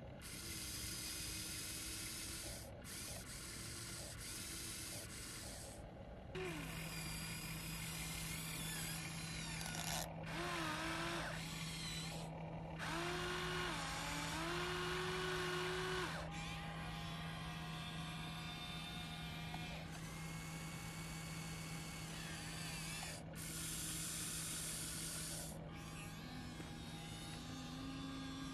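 Small electric motors of a radio-controlled excavator whining, their pitch rising and falling in short runs as the boom, arm and bucket move. A steady low hum comes in about six seconds in.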